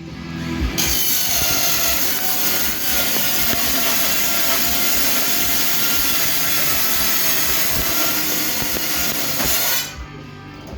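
Power tool running steadily for about nine seconds, with a whine over a harsh noise as it works on washing machine sheet metal. It starts about a second in and stops near the end.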